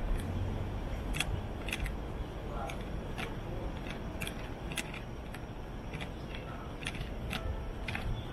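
Footsteps clicking on hard pavement at an even walking pace, about two steps a second, over a steady low background rumble.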